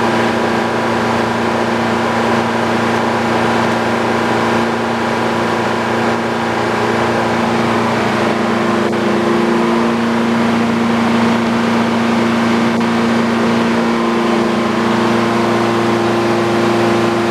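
Old Frick sawmill running steadily, its power unit and spinning saw making a loud drone with several steady hum tones. The sound shifts slightly about eight seconds in, as the mill's load changes.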